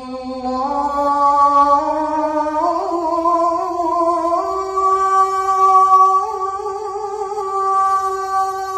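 An unaccompanied young man's singing voice holds one long note that climbs step by step in pitch through the first half, then stays level on the high note.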